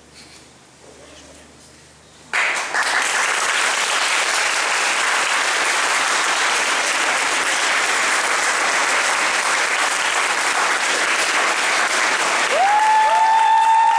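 Audience applause breaks out suddenly about two seconds in and carries on steadily. Near the end a long, high whistle rises in over the clapping and holds.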